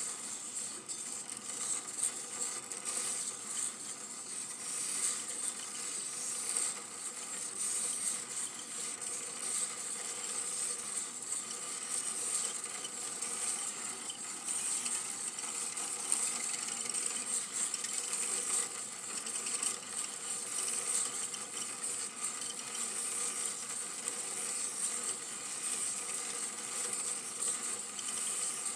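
Super 8 film projector running: a steady mechanical whir and rattle with fine crackling clicks throughout.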